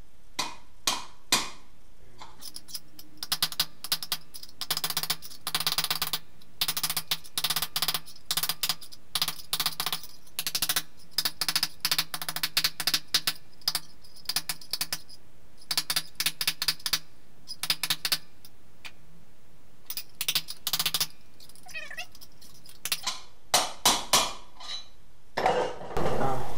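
A smooth-faced steel hammer striking a welded stainless-steel buckler dome held on an anvil, in fast runs of light blows with short pauses. A few heavier blows come near the end.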